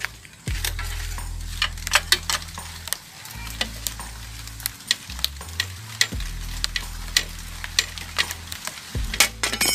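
A socket wrench on an extension bar ratcheting on a bolt at a steel bicycle's fork crown: a run of irregular metal clicks in clusters, with bits of the wrench knocking on the frame.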